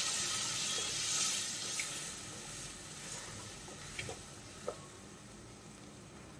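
Ambazhanga (hog plum) pickle sizzling in a pan, the sizzle dying away after a little water has been added. A wooden spatula stirs it, knocking lightly against the pan a few times.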